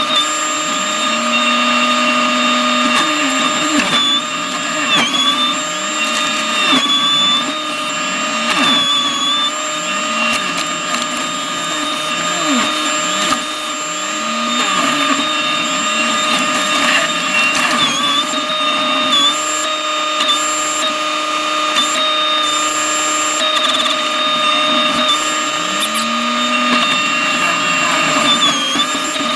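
New Holland C327 skid steer running at high throttle, driving a McLaren RM60 forestry mulching head: a steady high whine over engine noise, its pitch sagging briefly a few times.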